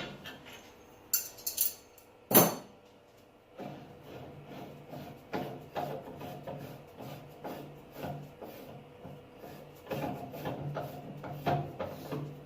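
Clanks and wooden knocks as a faceplate-mounted wooden bowl blank is handled and taken off a lathe. There is a sharp knock about two seconds in, then a run of irregular lighter knocks and rattles.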